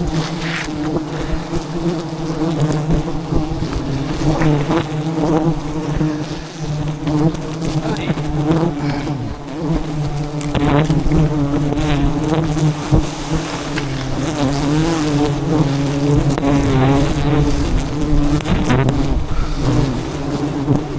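A swarm of giant honey bees (Apis dorsata) buzzing around their hive: a dense, steady drone whose pitch wavers.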